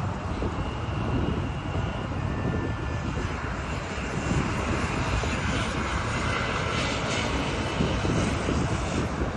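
Jet airliner engines running steadily, a broad rushing sound with a faint high whine.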